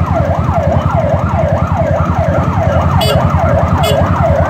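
Electronic vehicle siren in a fast yelp, its pitch sweeping up and down nearly three times a second, over a steady low rumble.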